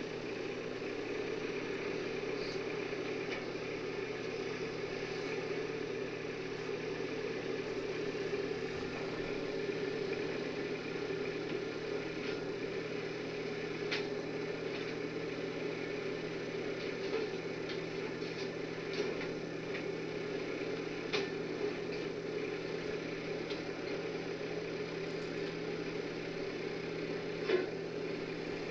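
Skid steer engine running steadily, with a few short knocks and clinks now and then.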